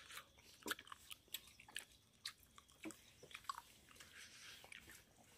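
Faint eating sounds: chewing and scattered small clicks of spoons and fingers against plates and bowls, a dozen or so, at irregular intervals.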